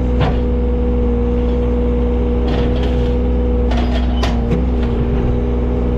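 John Deere 35G mini excavator's diesel engine running steadily, with a few short sharp knocks about halfway through.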